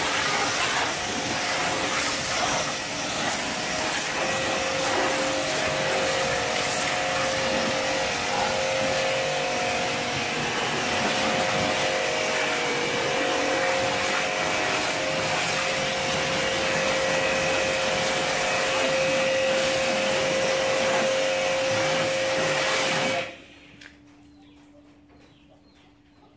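Hiroma pressure washer running, its motor whining steadily under the hiss of the water jet spraying the car's bodywork. Near the end it stops abruptly, leaving only a faint hum.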